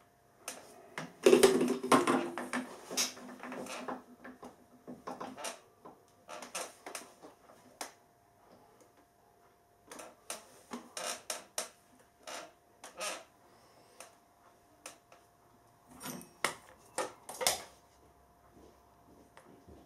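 Scattered metallic clicks, clinks and knocks of hand tools and steel parts against a Harrison lathe's carriage as a travel dial is fitted to it, with a louder clatter that rings briefly about a second in. A faint steady hum sits underneath.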